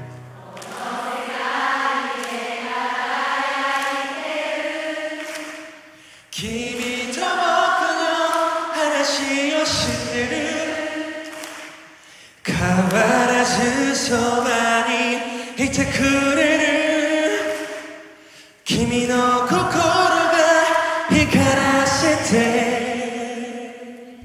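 A concert crowd singing a song's melody together without accompaniment, in four phrases of a few seconds each with short breaks between.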